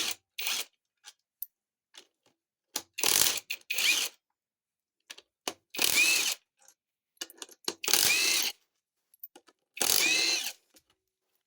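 Handheld power tool, such as a cordless ratchet, spinning in four short bursts about two seconds apart, with light metal clicks between them: bolts being run out during a transmission teardown.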